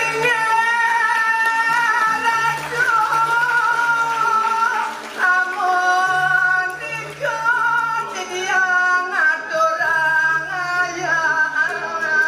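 A high solo voice singing slow, ornamented phrases of long wavering held notes, over low sustained tones from the gamelan accompaniment that drop out and return a few times.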